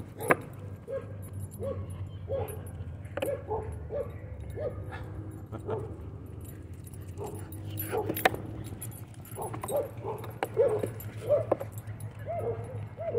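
A dog whining and yipping in short rising-and-falling notes, about one a second, with a few sharp knocks in between, the loudest about eight seconds in.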